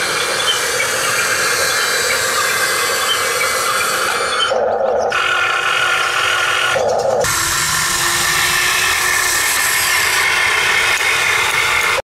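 Electric motors and gearboxes of a radio-controlled Huina excavator and wheel loader whining as they work in mud, with two brief changes in tone near the middle.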